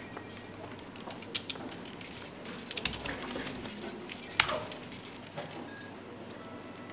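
A few scattered clicks from a computer keyboard and small clinks on a desk over a steady room hiss, with a short cluster about three seconds in and one sharper, ringing click about four and a half seconds in.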